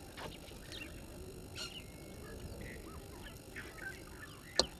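Several wild birds calling in short chirps and whistles over a faint steady background, with one sharp crack near the end.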